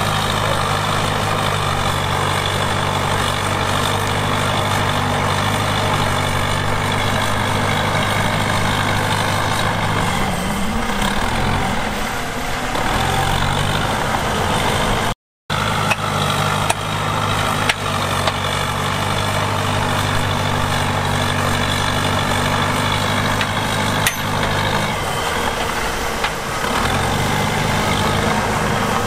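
Heavy diesel engine of earthmoving machinery running steadily, its pitch shifting about ten seconds in and again near the end. The sound drops out for a moment about halfway, and a few sharp clanks follow.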